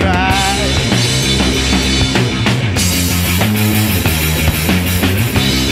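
Rock band playing loudly, with electric guitar over a drum kit keeping a steady beat.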